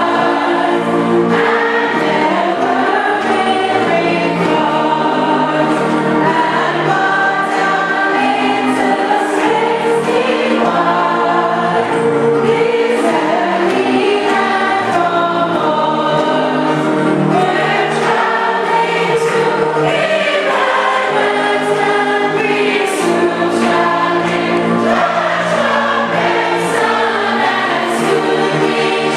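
Congregation singing a hymn together with instrumental accompaniment, steady and full throughout.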